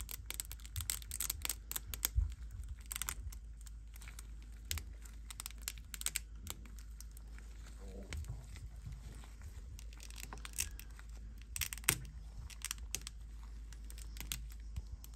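Thin cured-resin support struts snapping off a resin 3D-printed model car body as they are broken away by hand, in irregular flurries of small sharp clicks and crackles.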